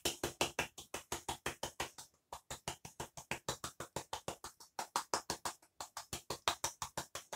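Seasoning shaker worked over a pan, a fast, even rattle of about six strokes a second, with short breaks about two seconds in and near six seconds.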